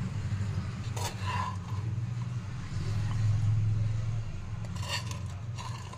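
A steel spoon scrapes and clinks against a ceramic jar while scooping out pickle: a couple of short knocks about a second in and again near the end. Under it runs a steady low hum.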